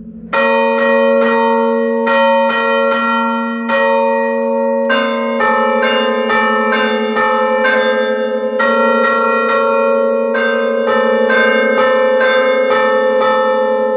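Ring of five church bells tuned in B flat, struck by hammers worked from a lever keyboard, playing a tune. Quick strokes come about three a second, each bell ringing on loudly under the next.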